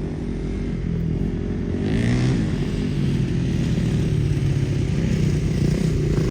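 Ford Mustang EcoBoost's turbocharged four-cylinder engine pulling while driving on a dirt trail, its pitch rising about two seconds in and then holding steady, with a rushing noise joining it from that point.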